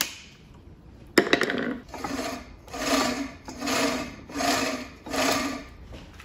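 A sharp click, then five even rasping strokes about three-quarters of a second apart.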